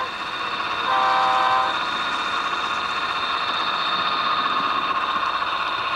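Diesel locomotive horn blowing a chord of several steady notes for under a second, about a second in, followed by the steady running sound of the train.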